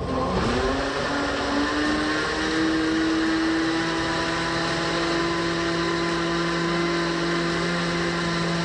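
Countertop electric blender running with a jar of liquid flan mixture: the motor rises in pitch over the first two seconds or so as it comes up to speed, then runs at a steady whine.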